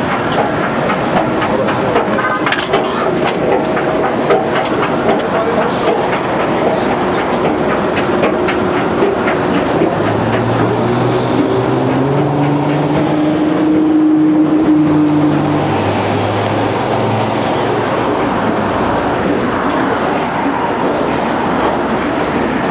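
Escalator running with steady clattering from its steps, mixed with loud city street noise. About halfway through, a low hum swells for several seconds and fades.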